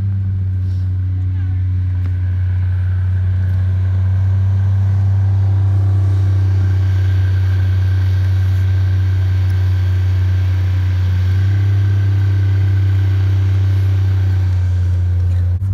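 Snowmobile engine running at a steady cruising speed, a constant low drone with little change in pitch.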